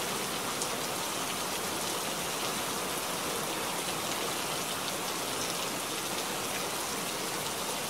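Steady rain, an even hiss of falling drops with faint scattered ticks.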